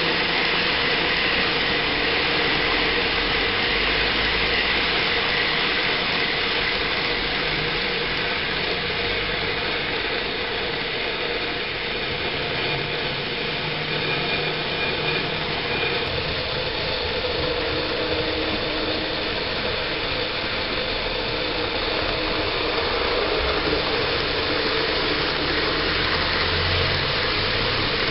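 N-gauge model train, an EF65 electric locomotive model hauling blue 24-series sleeper coaches, running on the track with a steady whirring and rumbling of motor and wheels.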